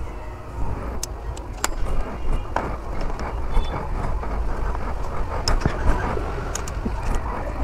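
Several light clicks and taps as a screw is driven into a motorcycle's air filter cover by hand, over a steady low rumble.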